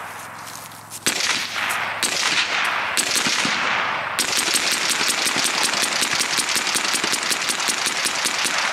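Gunfire: three single shots about a second apart, then rapid fire at about seven shots a second for over four seconds, stopping abruptly near the end.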